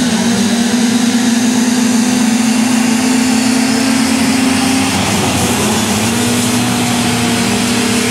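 Several six-wheel amphibious ATVs racing on a dirt track, their engines held at high, steady revs. The engine note drops a little about five seconds in, then picks back up.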